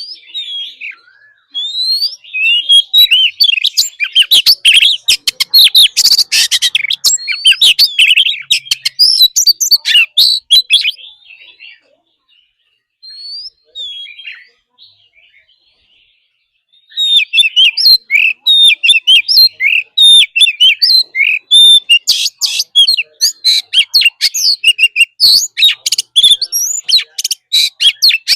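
Oriental magpie-robin singing a loud, fast, varied song of whistled notes mixed with rapid scratchy chatter. The song breaks off for a few seconds midway and then starts again.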